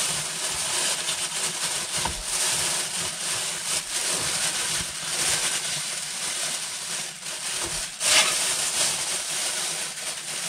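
Thin black plastic bin liner bag crinkling and rustling as it is pushed and tucked under the centre console by hand, with a louder burst of rustling about eight seconds in.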